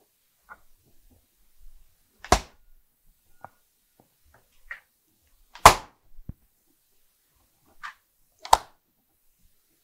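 Three sharp knocks about three seconds apart, with a few fainter clicks between them.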